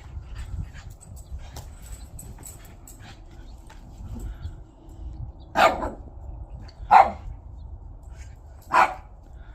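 A dog barking three times, single sharp barks about one and a half seconds apart, after several quieter seconds of faint clicks and rustling.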